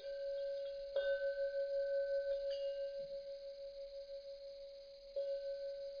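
A deep bell chime struck several times, the loudest strike about a second in and another about five seconds in. One tone rings on between the strikes with a slow wavering beat.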